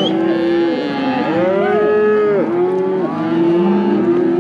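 A herd of cattle mooing, many calls overlapping without a break as the herd is driven along.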